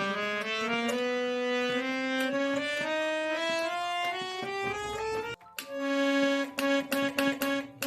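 Harmonium played as a test after a buzzing reed was repaired: a rising run of held, overlapping notes. After a brief break about five seconds in, one note is pressed again and again in short notes, with key clicks.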